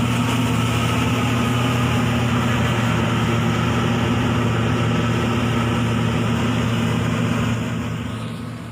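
Inari combine harvester's engine running steadily under load, a constant low hum with machinery noise, fading away in the last second or so.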